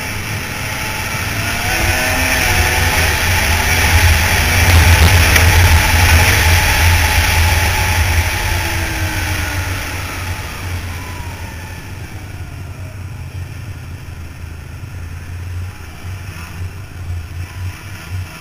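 2000 Ski-Doo Formula 500 Deluxe snowmobile's two-stroke engine under way, revving up to a loud peak about five seconds in, then easing off and running lower and more unevenly through the rest.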